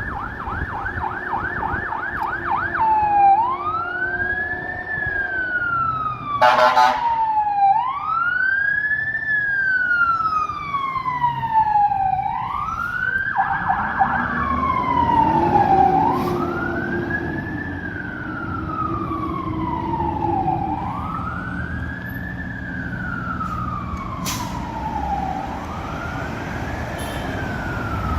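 Emergency vehicle siren. It opens with a fast yelp, then switches to a slow wail that rises and falls about every four seconds, with a brief return to the yelp about halfway through. A short loud blast cuts in about six seconds in.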